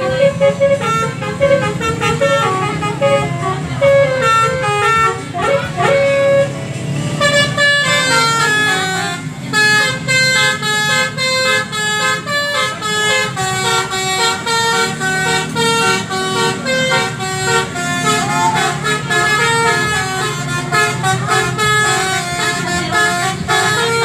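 Basuri horn, a multi-trumpet musical vehicle horn, playing a melody in quick stepped notes. The notes come faster and busier from about seven seconds in.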